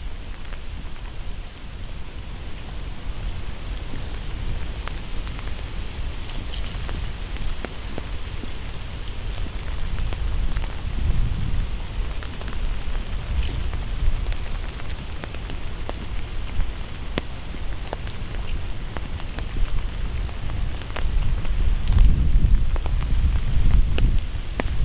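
Steady rain falling, with scattered sharp ticks of single drops landing close by, over a low rumble that grows louder near the end.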